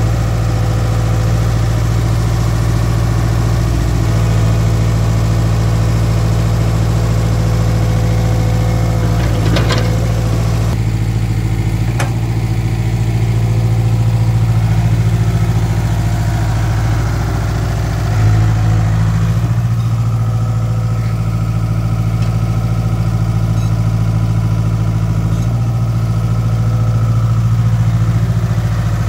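Komatsu PC60 mini excavator's diesel engine running steadily close by as the machine digs with its bucket. There is a brief knock about nine and a half seconds in and a sharp click about twelve seconds in.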